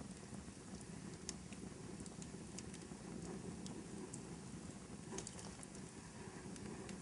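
Fireplace crackling softly: a low steady rumble of burning, with scattered sharp pops and snaps and a small cluster of them about five seconds in.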